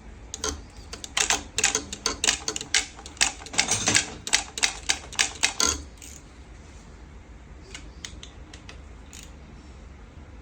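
A quick, uneven run of sharp metallic clicks and taps, about three or four a second, lasting some five seconds, then a few faint scattered clicks.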